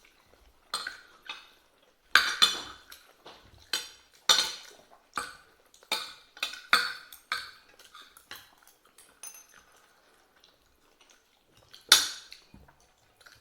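Spoon and fork clinking and scraping against a plate during a meal: a string of irregular sharp clinks with short ringing, loudest about two seconds in and again near the end.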